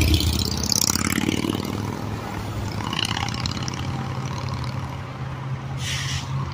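Road traffic passing close by: a car goes by loudly right at the start and fades over the next two seconds, over a steady low engine hum, with a short hiss about six seconds in.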